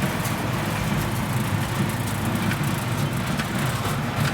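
International Harvester 766 tractor running steadily under load, driving an IH 445 square baler as it picks up and bales hay.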